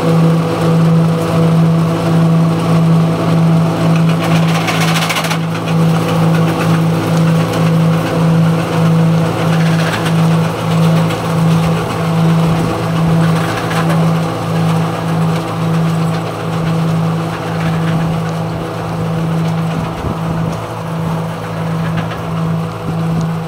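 Self-propelled grape harvester running as it works along a vineyard row, a steady low hum that pulses about twice a second over the machine's noise.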